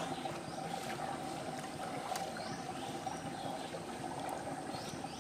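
Infinity-pool water lapping and trickling in a steady, gentle wash.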